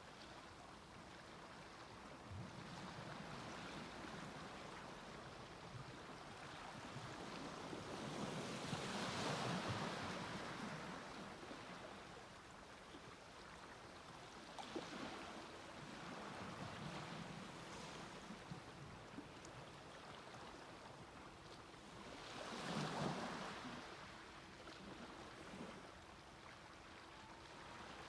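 Waves breaking and washing up on the beach, the surf rising and falling in slow swells, with two larger waves about nine seconds in and again near the end.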